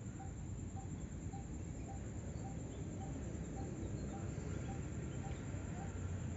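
Outdoor background: a low steady rumble with a faint short call repeating evenly about twice a second, from a distant animal.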